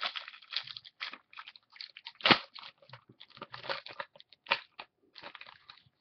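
Foil wrapper of a trading-card pack crinkling and tearing as it is opened, with the cards inside shuffled and handled: a string of short rustles and crackles, the loudest a sharp crack a little after two seconds in.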